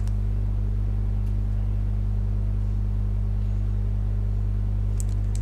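Steady low electrical hum with no other clear sound, and a faint tick near the end.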